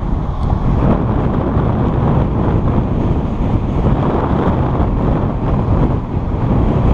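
Wind buffeting a car-mounted action camera's microphone over the steady rumble of a car driving on a paved road.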